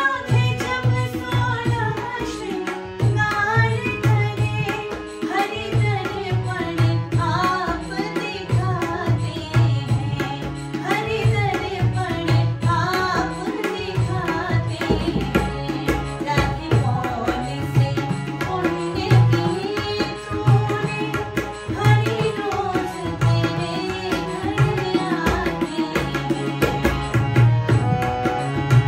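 Hindi Krishna bhajan: a woman's voice singing the melody over harmonium accompaniment, with tabla playing a steady rhythm, its bass drum strokes strongly prominent.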